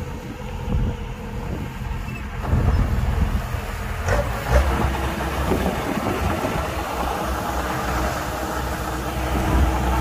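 Kubota DC105X combine harvester running at work: a steady, heavy low rumble from its diesel engine and machinery, growing louder about two and a half seconds in.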